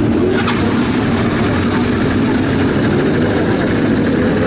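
Classic racing motorcycle engines running steadily at idle, a loud, even drone.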